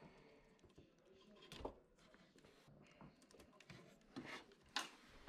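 Near silence with a few faint plastic clicks and handling noises, the clearest about a second and a half in and near the end, as wire connectors are pulled apart at a washer's control panel.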